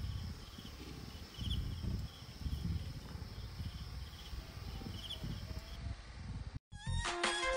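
Outdoor ambience: a low rumbling noise with faint, short high chirps repeating about once a second. The sound cuts out briefly near the end and music begins.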